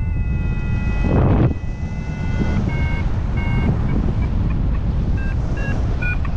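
XC Tracer Maxx variometer sounding a held electronic tone that breaks up into a run of short beeps at changing pitches, over heavy wind noise on the microphone. A gust-like burst of wind noise comes about a second in.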